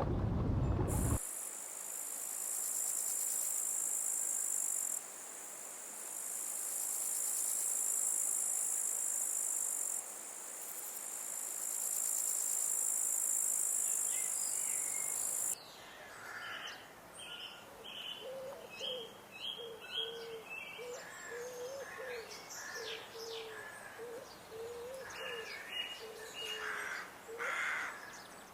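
A high, steady insect drone in three long stretches, stopping abruptly about 15 seconds in. After it, a bird calls in many short, repeated chirps.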